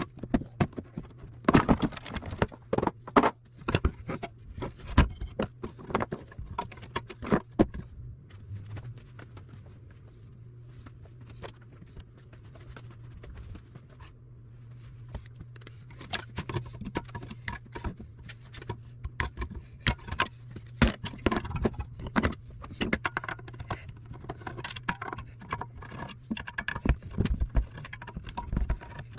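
Irregular clinks, clicks and knocks of tools and small metal parts being handled while a scale is taken apart for scrap, with a steady low hum underneath. The clatter thins out for several seconds in the middle, then picks up again.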